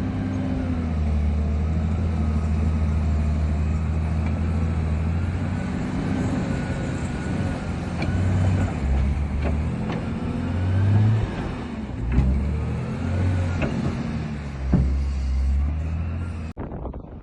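Diesel engine of heavy snow-clearing machinery running, its pitch rising and falling as it works, with a few sharp knocks. The engine sound cuts off near the end.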